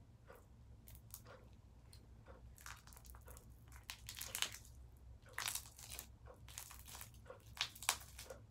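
Sticky gum-and-shaving-cream slime being pulled and squeezed on the hands, giving irregular crackly, squishy noises, loudest in the second half.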